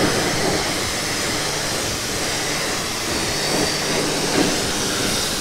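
Pressure washer wand spraying a high-pressure jet of water onto a car's front grille and bumper: a steady hiss of spray.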